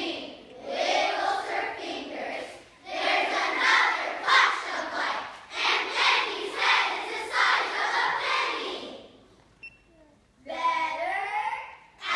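A large group of children reciting in unison, in loud chanted phrases broken by short pauses. After a quiet gap near the end, a single voice speaks alone briefly.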